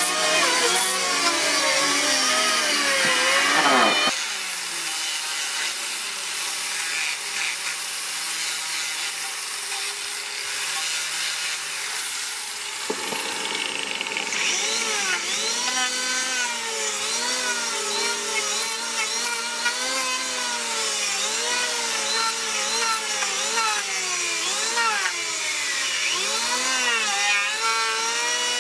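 Electric hand planer running and cutting wood, its motor pitch dipping and recovering with each pass as the blades bite. The sound changes abruptly twice, about four and thirteen seconds in.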